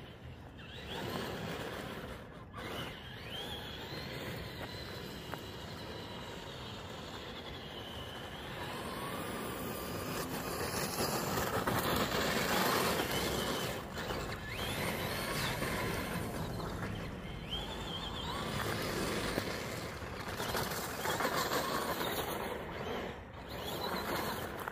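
Traxxas Bigfoot RC monster truck's brushed electric motor whining, rising and falling in pitch with the throttle, over the crunch of its tyres on gravel and slush. It is loudest around the middle as the truck passes closest.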